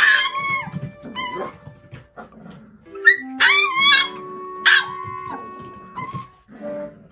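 Micro-teacup toy poodle puppy screaming for its food: about four shrill, high-pitched cries, the longest a wavering one about halfway through.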